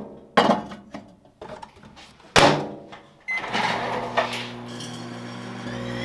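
Handling knocks and a loud bang at the microwave oven, a short keypad beep, then the microwave oven starts running about three seconds in with a steady electrical hum.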